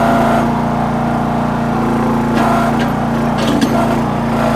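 Towable backhoe's small engine running steadily under digging load, with a few short knocks about three and a half seconds in.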